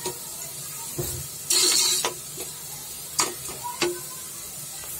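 Chopped onions sizzling in hot oil in an aluminium pressure cooker as they fry to light brown, stirred with a steel spoon. A louder burst of sizzling and scraping comes about a second and a half in, and a few sharp clicks of the spoon on the pot follow.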